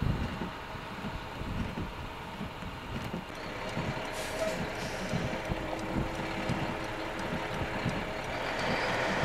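Heavy truck engines idling at a roadside crash scene, a steady hum under gusts of wind on the microphone, with a short hiss about four seconds in.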